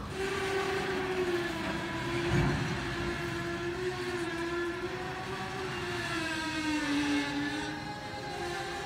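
Loaded ballast hopper cars of a slowing freight train squealing at the wheels and brakes: a steady, wavering squeal that sags a little in pitch near the end, over the rumble of rolling cars, with a low thump about two and a half seconds in.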